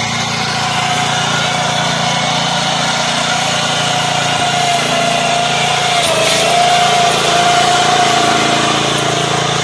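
The small engine of a Kummucit KM840/14 walk-behind meadow mower runs steadily under load while it mows tall grass. A steady whine rides over it, dipping briefly in pitch about six seconds in.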